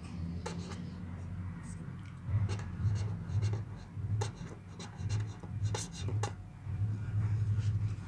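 Marker pen writing on paper: short scratchy strokes as a word is written out. Underneath, a low hum pulses on and off from about two seconds in.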